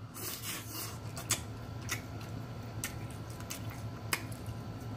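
Eating crab close to the microphone: sharp snaps and clicks of crab shell being cracked and picked, roughly one a second, with a softer rustle of handling and chewing in the first second.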